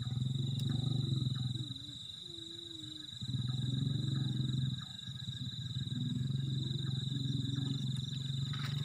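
Frogs croaking in low, rapidly pulsed calls, coming in three bouts of a second or more each, over a steady high-pitched insect trill.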